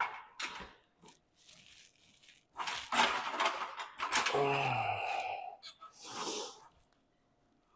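A man straining through a set of close-grip bench press, with hard, noisy exhales and a grunt that falls in pitch about four seconds in.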